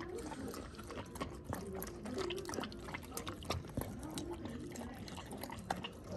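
Samoyed puppy eating kibble from a bowl close to the microphone: wet chewing and crunching with many short, sharp clicks.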